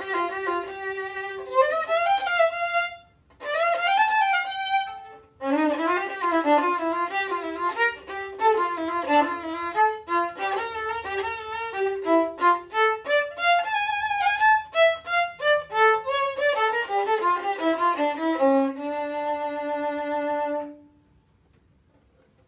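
Solo violin bowing a melody: two short phrases with brief breaks, then a long run of quick notes. It ends on a long held low note that stops about 21 seconds in.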